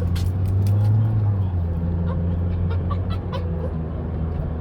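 Car engine and road noise heard from inside the moving car's cabin: a steady low drone that swells slightly about a second in, with faint light clicks and rattles over it.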